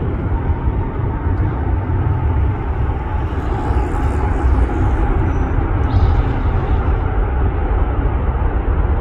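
Steady low rumble of a Boeing 777 freighter's jet engines as it rolls out along the runway after landing.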